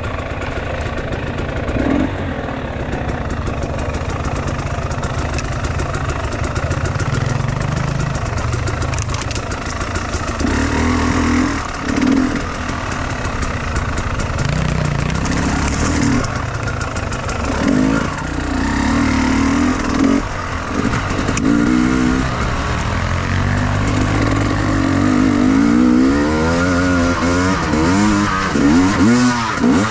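Enduro motorcycle engine running under load as the bike is ridden off-road, revving up and down with the throttle over and over, with quicker rises and falls in pitch near the end.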